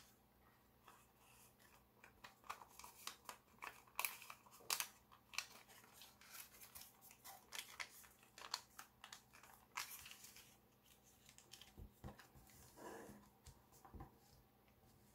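Foil-backed origami paper crinkling and crackling in the hands as it is folded and creased: a run of quick, crisp clicks, thinning out near the end, where a few duller taps come as the paper is pressed flat on the table.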